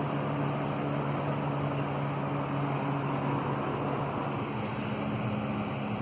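Lasko box fan running on medium speed: a steady rush of air over a low motor hum. A little past the middle the hum's pitch shifts slightly lower.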